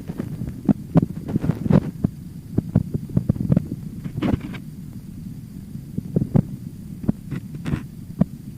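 Irregular light knocks and clicks, a few dozen over several seconds, over a steady low rumble.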